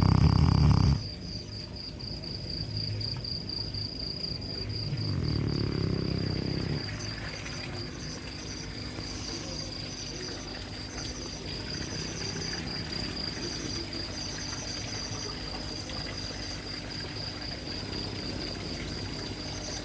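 A sleeping dog snoring heavily: a loud snore at the start and another about five seconds in, with quieter breathing between. Crickets chirp steadily throughout.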